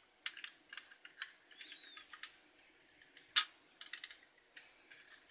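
Small plastic clicks and taps as the hand and red lightsaber of a Bandai Darth Vader action figure are pushed back onto its arm. One sharper click comes about three and a half seconds in.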